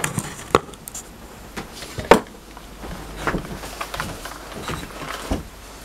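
Scattered clicks and knocks of metal parts being handled as a homemade lapping fixture is fitted onto an engine valve, the sharpest knock about two seconds in.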